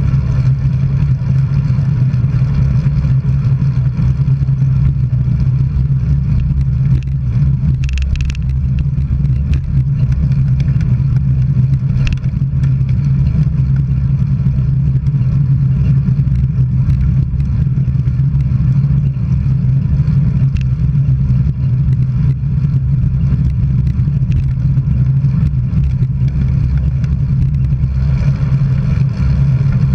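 Steady road and wind noise of travel along a road, a constant low drone, with a couple of brief faint ticks.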